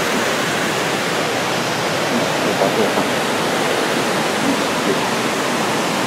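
Steady rush of a waterfall on a mountain stream, an even, unbroken noise of falling water.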